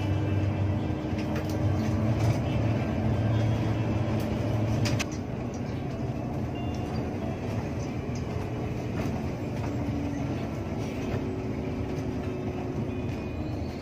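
Diesel engine of a Hino RK8 R260 bus running on the road, heard inside the cabin at the front: a steady low drone with tyre and road noise. About five seconds in the engine drone drops away and the sound gets quieter.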